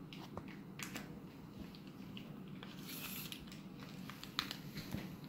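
Faint handling sounds of a small cardboard toy milk carton and the soft dough packed inside it: scattered light clicks and rustles, with a brief crinkle about three seconds in.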